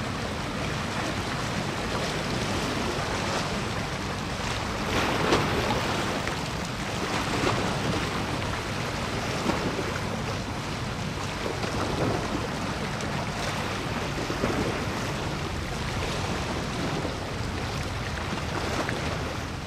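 Small waves washing against the shore, swelling every two to three seconds, with wind noise on the microphone.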